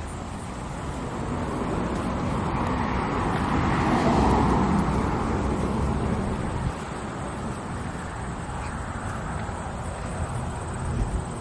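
A car driving past, growing louder to a peak about four seconds in and fading away a couple of seconds later.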